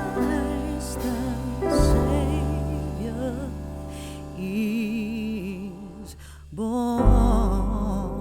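Background music: a slow melody with vibrato over low bass notes. It dips briefly and starts a new phrase about seven seconds in.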